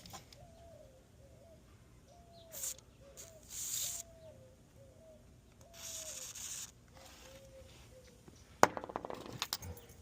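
Lubricant sprayed in several short hisses into a sticking lock cylinder during a rekey. About eight and a half seconds in comes a loud sharp metallic click, then a few smaller clicks of the lock being worked.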